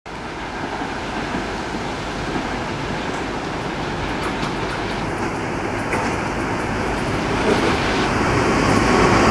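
EP20 electric locomotive hauling a passenger train on approach: a steady rumble of wheels on rail, growing gradually louder as it nears, with a few faint clicks.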